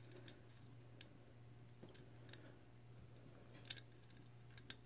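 Faint, scattered small metal clicks of a hex cap screw being threaded by hand into a tapped hole in a metal shroud, with two sharper clicks near the end, over a low steady hum.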